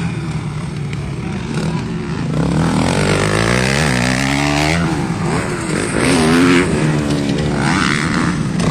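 Motocross dirt bikes revving hard as they ride past on the track, several engines overlapping. The engine pitch climbs and drops again and again, and the sound grows louder a couple of seconds in as a bike comes close.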